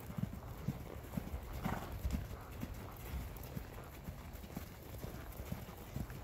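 Hoofbeats of a horse loping on soft dirt arena footing: a steady run of dull thuds, a few each second.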